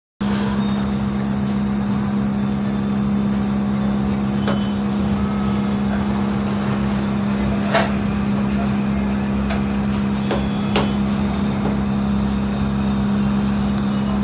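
Steady low machine hum at an even level, with a few short sharp clicks over it, the loudest a little past halfway.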